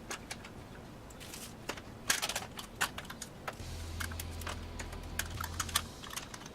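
Irregular light clicks and taps of hands handling PC case parts and cables, with a low steady hum starting about halfway in and stopping shortly before the end.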